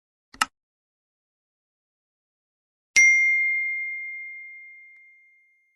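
A short click about half a second in, then a single bell ding about three seconds in that holds one high pitch and fades slowly over some two and a half seconds.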